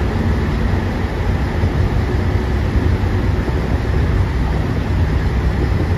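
JR Shikoku 2700 series diesel express train pulling out of the station, its engines running under power with a steady low drone.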